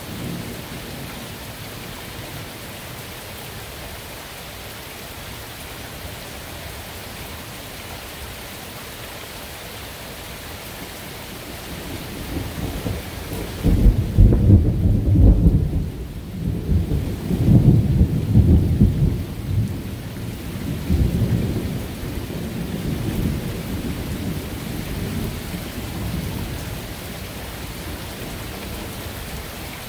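Steady rain hiss, then a long rolling thunder rumble that builds about twelve seconds in. It is loudest for several seconds and dies away in a few swells over the next several seconds.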